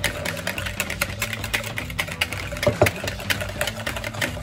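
Wire balloon whisk beating a thin liquid in a plastic mixing bowl: a fast, even run of clicks as the wires strike the bowl's sides, several strokes a second.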